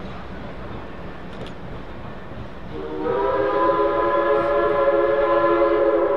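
Texas State Railroad #400 steam locomotive sounding its chime whistle. A long, steady chord of several tones starts about three seconds in over the rolling rumble of the train.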